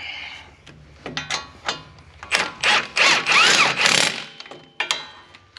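Impact gun running the hub assembly's mounting bolts down in several short bursts, with one longer burst of about two seconds in the middle.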